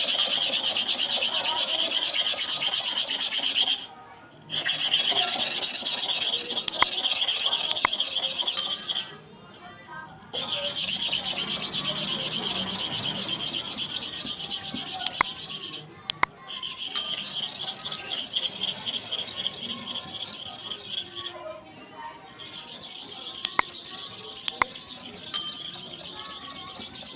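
Steel bottom clipper blade being sharpened, its flat inner face scraping against a sharpening surface with a fine, rapid grinding rasp. It comes in five runs of about four to six seconds with short pauses between.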